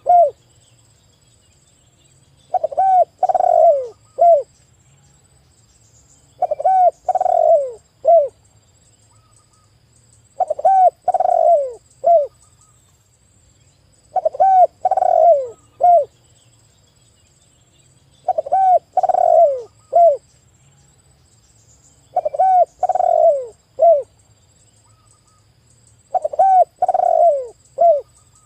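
Spotted dove (tekukur) cooing, the same phrase of a few rolling coos ending in a short clipped note repeated about every four seconds, seven times over.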